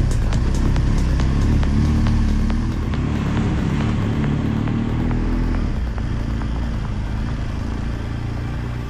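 Motorcycle engine running while riding along a rough dirt track, its note rising and falling between about two and five seconds in, then easing off a little.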